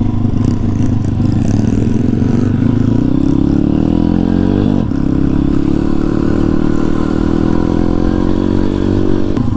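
Kayo pit bike's YX 140cc single-cylinder four-stroke engine running under way. Its pitch rises over the first few seconds, dips briefly about halfway through, then holds steady.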